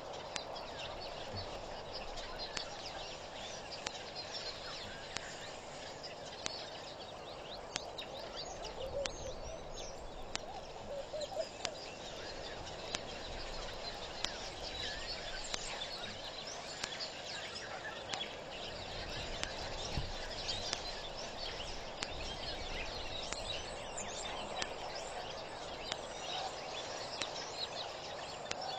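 A dense, steady chorus of wild birds calling in the bush, many short chirps and calls overlapping throughout, with a few lower swooping calls about ten seconds in.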